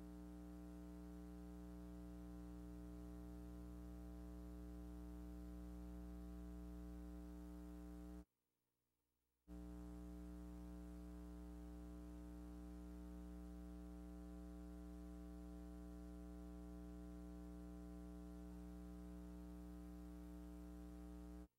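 Faint, steady electrical hum with a stack of evenly spaced overtones and no other sound. It cuts out to silence for about a second near the middle, then returns unchanged.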